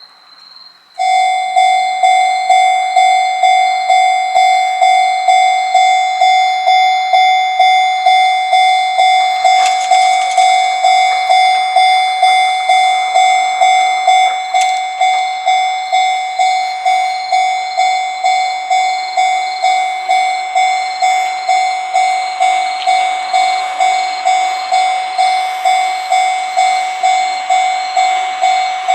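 Japanese level-crossing warning bell starts about a second in and rings steadily at about two strikes a second. Near the end the noise of an approaching train rises beneath the ringing.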